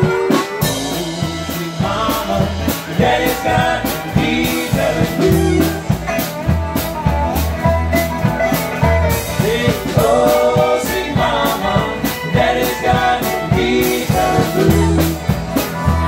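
Live acoustic band playing a tune: harmonica played into a microphone carries the melody over fiddle and archtop guitar, with upright bass notes pulsing underneath.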